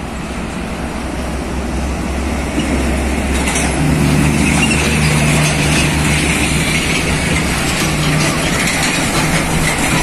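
Heavy diesel trucks driving past: a low engine drone and road noise that build up. A stronger, steady engine note comes in about four seconds in as an old Scania truck pulling a flatbed trailer passes close.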